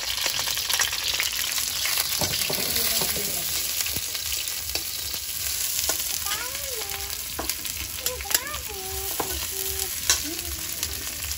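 Onion and green chillies sizzling in hot oil in a steel kadhai, stirred with a metal spatula that scrapes and clinks against the pan from time to time.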